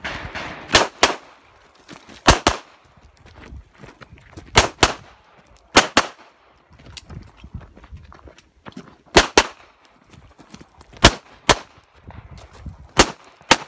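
Pistol shots fired in quick pairs (double taps), about seven pairs with gaps of a second or more between them.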